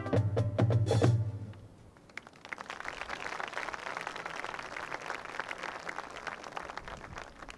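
Marching band: brass and drums play a loud chord with accented hits that cuts off about a second in, then the drum line alone carries on with a quicker, softer passage of rapid, crisp taps.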